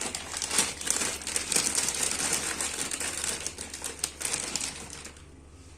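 Plastic packet of frozen pelmeni crinkling and rustling as a hand rummages in it for more dumplings. The sound fades out about five seconds in.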